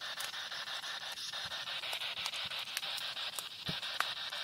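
Spirit box scanning radio frequencies: a steady static hiss from its small speaker, broken by brief clicks as it jumps from station to station.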